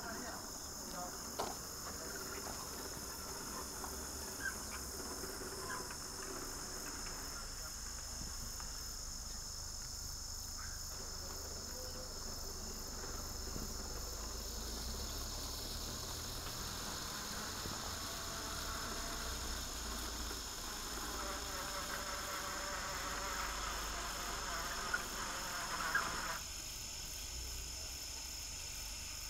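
Crickets chirp steadily over the crackling hiss of a handheld firework sword (a sparkler-type flare) burning, with a few small pops. The crackling grows stronger in the second half and drops away abruptly near the end, while the flare keeps burning red.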